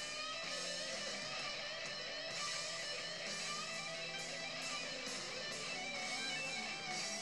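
Background music: a guitar-driven track with a steady beat.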